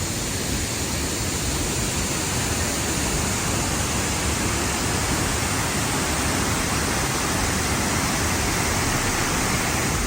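Steady rushing roar of water pouring over Tahquamenon Falls.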